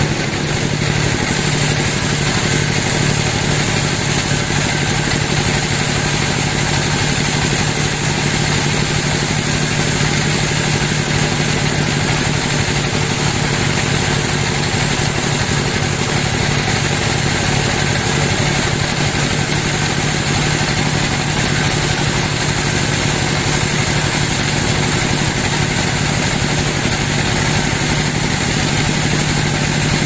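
Band sawmill running steadily while its blade rips lengthwise through a log: a constant mechanical drone with a steady hum that does not change.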